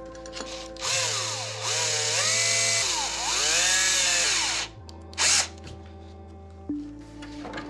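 Cordless drill/driver spinning a long screwdriver bit to drive a screw into the crawler chassis. The motor whine rises and falls in pitch with the trigger in two long runs, then gives one short blip about five seconds in.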